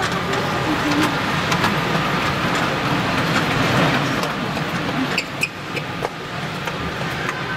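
Steady background din of a busy exhibition hall, with scattered sharp clicks and knocks.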